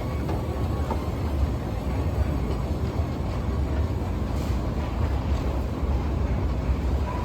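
KONE escalator built in 2001, running with a steady low rumble and a few faint clicks as the steps travel.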